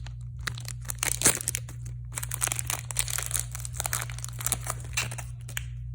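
Toy packaging crinkled and torn open by hand: dense, irregular crackling and rustling, with one sharp crack a little past a second in, stopping just before the end. A steady low hum runs underneath.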